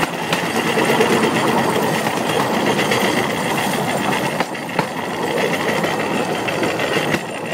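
Cambodian bamboo train (norry) running along the rails: its small engine and steel wheels keep up a steady, loud rattle and clatter, with a few sharper knocks.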